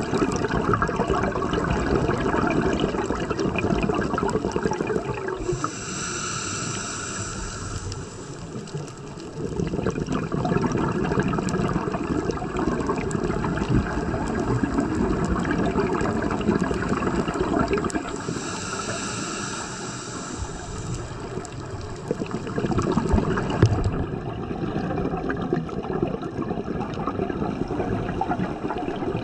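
Underwater ambience of a scuba diver breathing through a regulator, with a steady rushing and bubbling of water. Two longer hissing breaths come through, one about a fifth of the way in and another about two-thirds through.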